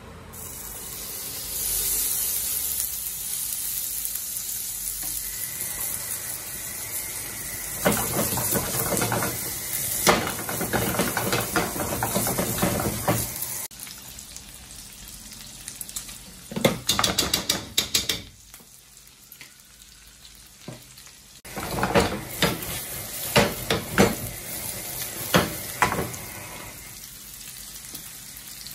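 Sliced wagyu beef sizzling in a hot frying pan, the sizzle rising a second or two in as the meat goes into the pan. Several bursts of clatter and scraping come as the meat is stirred.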